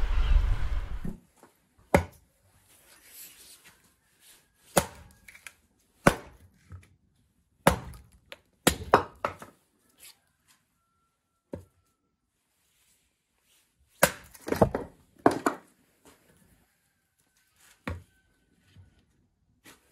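Firewood being split with a hatchet on a stone chopping block, with split pieces knocking as they are handled and set down: sharp wooden knocks, irregularly spaced, with a quick cluster of strikes past the middle. A low rumble cuts off about a second in.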